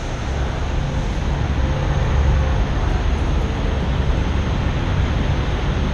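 Wind buffeting the microphone outdoors: a loud, steady rushing with a heavy low rumble that grows louder over the first second or two.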